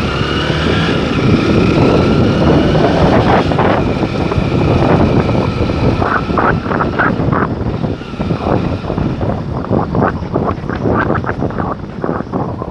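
Wind buffeting hard on the microphone over the engine of a moving vehicle, the engine rising in pitch in the first couple of seconds as it pulls away.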